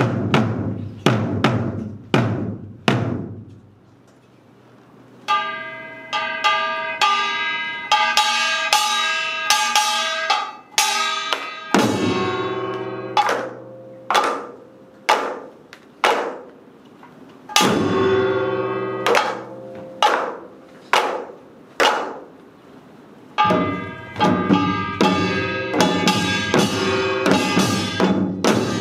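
Utdari-style samul nori from a seated ensemble. A few slow, sparse drum strokes on janggu and buk open it, followed by a short pause. About five seconds in, a ringing metal gong joins on a quick steady beat, and from about twelve seconds in a deep gong ring comes in roughly every six seconds.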